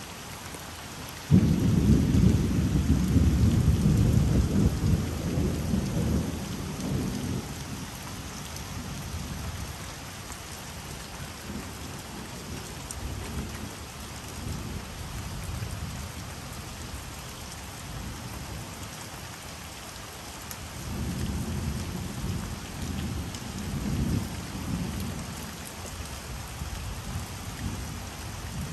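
Thunder during a rainstorm: a sudden loud clap about a second in that rolls on as a low rumble and fades over about six seconds, then a second, softer rolling rumble later on. Rain makes a steady hiss throughout.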